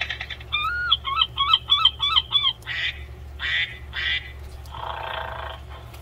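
Recorded animal sounds played from a children's button sound book's small speaker: a quick run of about eight short pitched chirps, then three short harsher calls. Near the end comes a longer noisy rasp.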